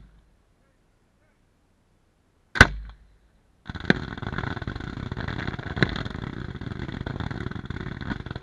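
Aerial fireworks: a sharp report at the very start, one loud shell burst about two and a half seconds in, then from about a second later a continuous dense crackling with a couple of louder pops as crackling-star effects fill the sky.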